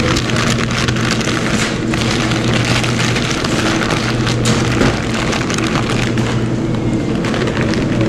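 White paper wrapping crinkling and rustling as it is handled, over the steady hum of restaurant kitchen equipment.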